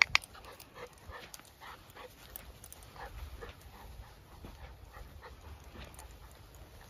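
Golden Retriever puppy whimpering softly, with one short, sharp yip right at the start.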